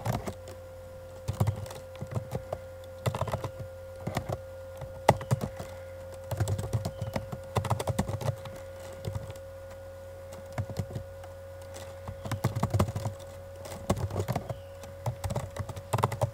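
Typing on a computer keyboard: clusters of quick keystroke clicks with short pauses between them, over a steady faint hum.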